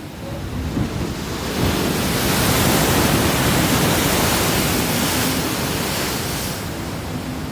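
Pacific Ocean surf: a wave breaking and washing up the beach, its rush building over the first two seconds and then slowly easing off.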